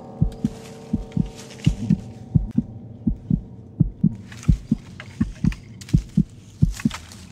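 Heartbeat sound effect: steady pairs of low lub-dub thumps, a double beat about every 0.7 seconds. A held tone fades away over the first couple of seconds, and short rushes of hiss come and go over the beat.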